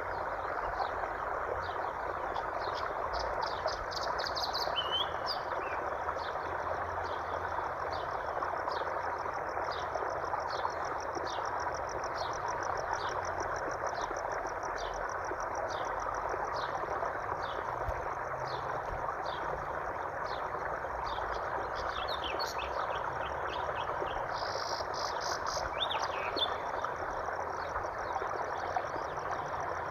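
Flowing water making a steady rushing wash under a regular train of short, high, repeated chirps from frogs or insects. A few brief bird calls break in a few seconds in and again past the twenty-second mark.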